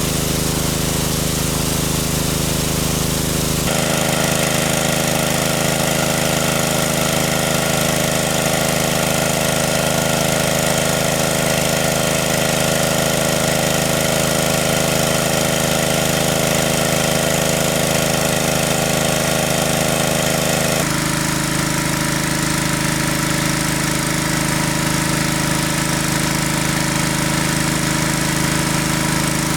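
Engine of a large water pump running steadily at constant speed, a continuous knocking drone. Its tone shifts abruptly about four seconds in and again about two-thirds of the way through.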